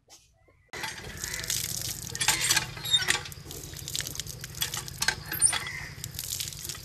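Water running from an outdoor standpipe tap and splashing onto a concrete slab as a man drinks from the spout, with irregular splashes over a steady low hum. It starts abruptly about a second in.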